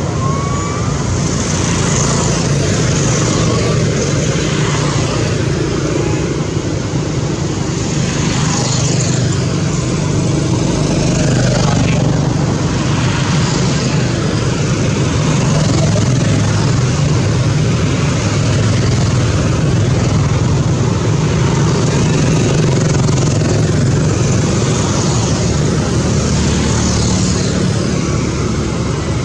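A steady, loud, low engine rumble with no break, with faint high squeaks over it now and then.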